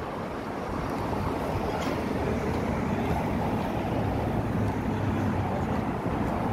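City street noise: a steady low rumble of passing traffic, growing a little louder about a second in.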